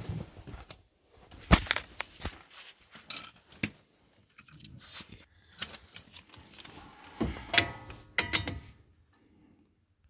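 Scattered clinks and knocks of metal hand tools and sockets being handled and set down, with a few sharper knocks and brief metallic ringing near the end.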